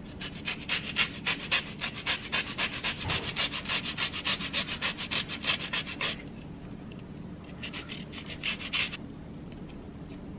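Lemon zest being grated on a hand grater: quick, even rasping strokes for about six seconds, then a short second bout a couple of seconds later.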